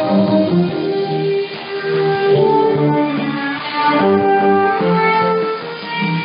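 Instrumental music with sustained melodic notes, heard through a shortwave radio receiver whose narrow 5 kHz audio bandwidth cuts off all the treble.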